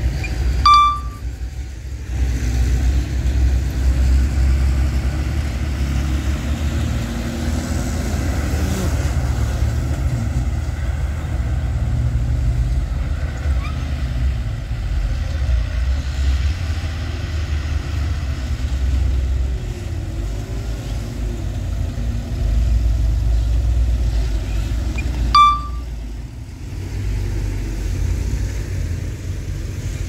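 Low, steady diesel rumble of a small crawler bulldozer and dump truck working, pushing and unloading dirt. A brief high beep sounds about a second in and again near the end, each followed by a short dip in the rumble.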